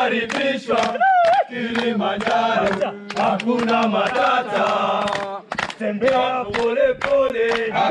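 A group of men singing and chanting together to steady rhythmic hand clapping.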